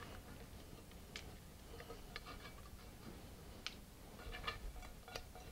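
Faint, scattered light clicks and taps of a silicone spatula scraping a stainless steel saucepan as a reduction is tipped into a glass bowl.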